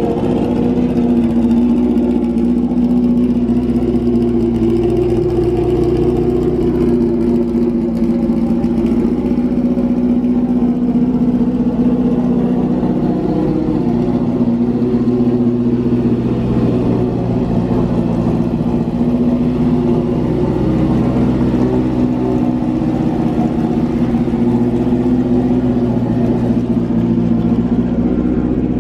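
The race-prepared four-cylinder engine of a 1969 BMW 2002 idling steadily.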